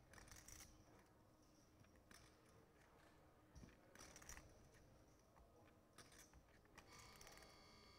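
Near silence, with a few faint, short clicks of poker chips being handled at the table.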